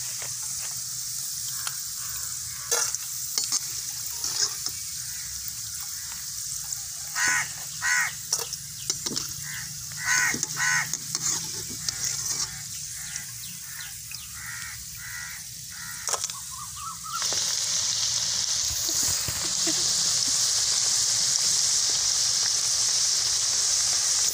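Slices of aathandangai (wild caper fruit) frying in hot oil in an aluminium kadai: a steady sizzle, with the slotted ladle clinking against the metal as the fried slices are lifted out. About seventeen seconds in, a fresh batch of raw slices goes into the oil and the sizzle suddenly turns much louder.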